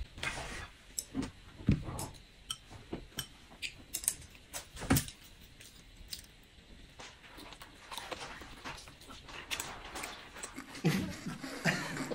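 Eating at the table: scattered light clicks and taps of chopsticks against plates and a bowl, with chewing, and one sharper click about five seconds in.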